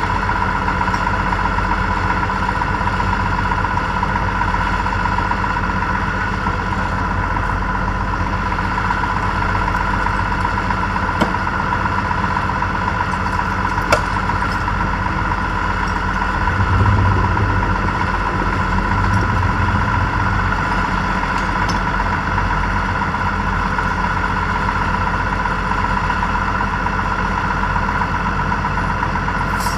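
Tractor engine idling steadily, with a brief deeper surge of the engine about halfway through and a couple of faint clicks.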